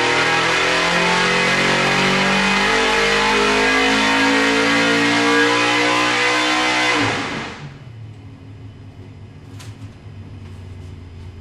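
418 cubic inch small-block Ford stroker V8 with an alcohol carburetor, making a full-throttle dyno pull, its pitch rising steadily as the revs climb past 7,000 rpm. About seven seconds in, the throttle shuts and the sound drops suddenly to a much quieter low running as the engine comes off the pull. It is heard from the control room through the dyno cell's window.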